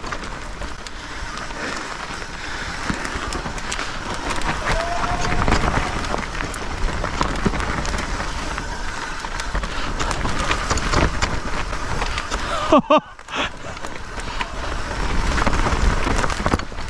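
Mountain bike riding down a dirt trail: a steady rush of tyre and air noise with many small clicks and rattles from the bike over rough ground. About 13 seconds in there is a short whoop from the rider.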